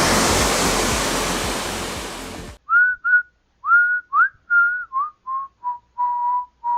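Waterfall rushing as a steady, even noise that fades and cuts off about two and a half seconds in. Then a short whistled tune of about eleven notes, stepping down in pitch and ending on a longer held note.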